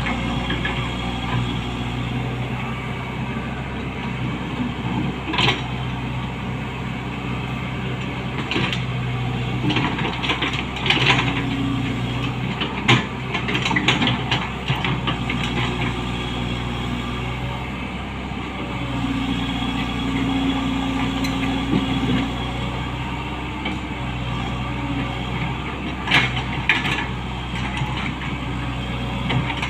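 Komatsu PC75US-3 excavator running steadily, its engine note strengthening in two stretches, with scattered sharp knocks.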